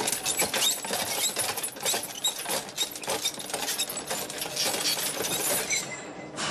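A dense, continuous run of crackling clicks and small knocks, thinning out near the end.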